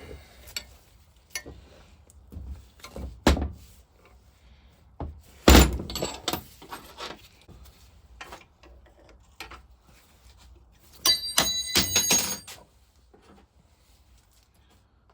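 Spanners and metal engine parts knocking and clanking on a workbench as a vaporiser is stripped: scattered knocks, a heavy thunk about five and a half seconds in, and a ringing metallic clatter around eleven to twelve seconds.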